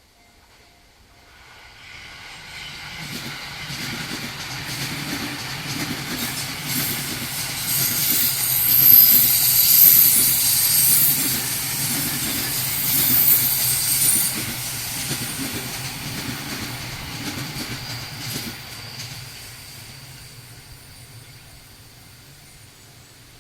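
Electric commuter train passing a level crossing. The wheel-on-rail noise swells from about a second in, is loudest in the middle with a rhythmic clatter of wheels over rail joints and a high hiss, and fades away toward the end. The crossing's warning bell rings at the start, beneath the train.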